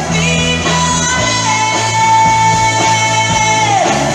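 Live rock band: a woman sings one long, high held note into a microphone over electric guitars and a steady low backing. The note slides down in pitch near the end, and a new phrase begins just after.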